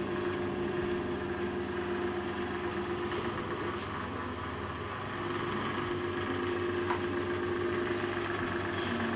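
A steady motor hum with a few faint ticks.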